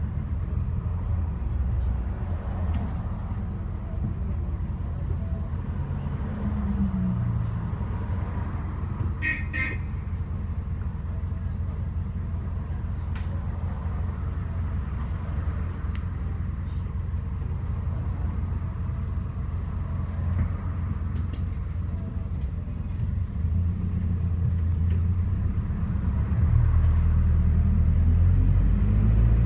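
Ataman city bus's diesel engine idling at a stop, with a short high beep about nine seconds in; near the end the engine revs up with rising pitch as the bus pulls away.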